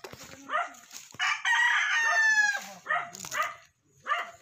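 A rooster crowing once: a long call of about a second and a half, starting about a second in and dropping slightly in pitch near its end. A dog barks in short repeated calls before and after it.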